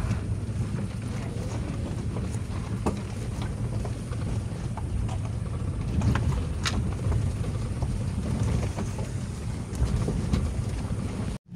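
Cabin noise of a vehicle driving slowly over a rough dirt track: a steady low engine and tyre rumble with scattered small knocks and rattles as it bumps over the ruts.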